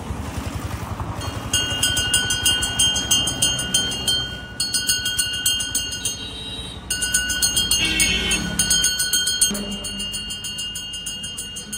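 Brass hand bell on a kulfi seller's pushcart rung rapidly in several stretches with short breaks, each strike ringing with the same bright tones: the street vendor's call to customers.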